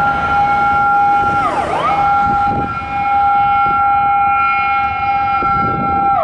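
Electronic fire-vehicle siren from a Patlite SAP-520 siren amplifier, holding a steady high two-tone note. The note dips quickly down and back up about a second and a half in, then holds again and starts another dip at the very end.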